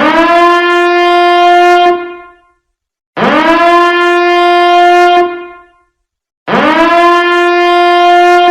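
Loud horn-like alarm blasts, three of them, each about two seconds long. Each one swoops up in pitch at its start, holds one steady note, then dies away.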